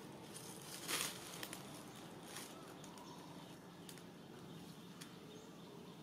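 Faint outdoor ambience, with a brief rustle about a second in and a few soft clicks after it.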